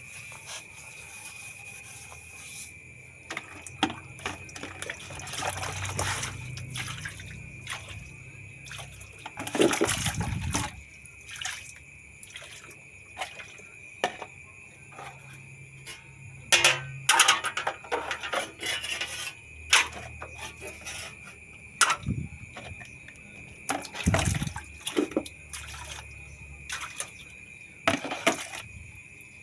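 Water splashing and dripping with irregular knocks and clatters as ceiling fan parts are washed by hand, over a steady faint high-pitched whine.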